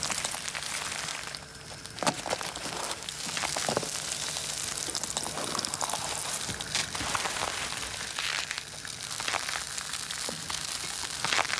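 A jianbing crepe sizzling on a hot griddle, with a metal spatula scraping and tapping against it in short strokes as sauce is spread over it.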